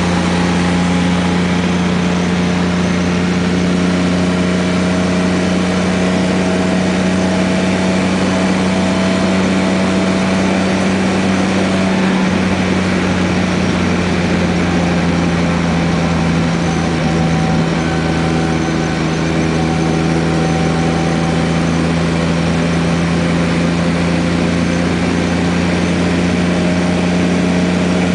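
1981 Ford Falcon at road speed, with a steady low drone from the running gear that the owner suspects is a worn wheel bearing or a driveshaft U-joint. A few fainter tones drift slightly in pitch above it.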